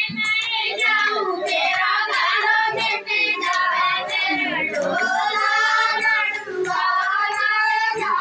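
A high voice singing a melody with long, wavering held notes, with regular sharp claps keeping time.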